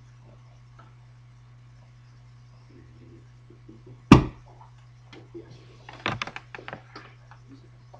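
A single loud thump about four seconds in, then a run of smaller clicks and knocks, as a laptop cable is handled at a wooden lectern. A steady low hum lies underneath.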